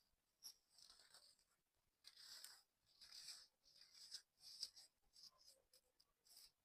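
A sand tower crumbling: a run of soft, crisp, gritty crackles in short clusters, several a second.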